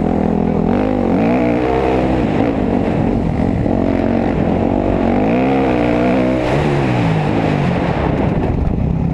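Dirt bike engine at close range on a trail ride, the revs climbing and dropping over and over as the rider works the throttle and shifts.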